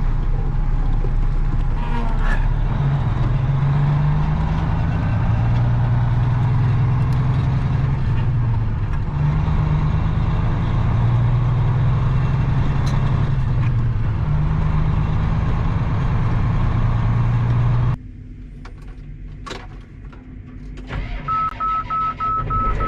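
Truck engine running, its low pitch rising and falling several times. About 18 seconds in it cuts off abruptly to a quieter background with a few clicks, and near the end a rapid run of short, high beeps.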